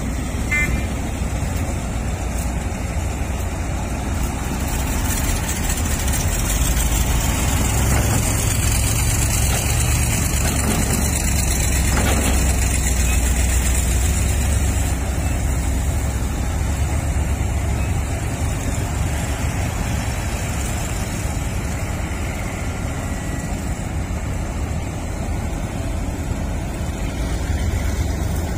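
Sumitomo SH350 hydraulic excavator's diesel engine running steadily as it digs and swings, a low rumble that swells slightly midway.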